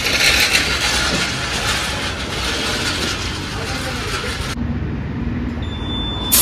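A tyre inflator hose hissing steadily at a car's tyre valve as the tyre is topped up with nitrogen. The hiss stops suddenly after about four and a half seconds, and a second hiss starts right at the end. A low rumble runs underneath.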